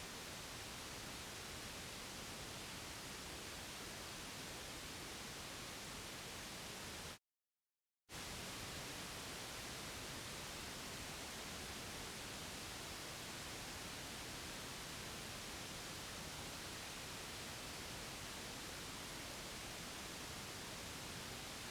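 Steady white-noise hiss, an even static with no tone or rhythm, played as a soothing sound for a baby. About seven seconds in it cuts out completely for just under a second, then resumes.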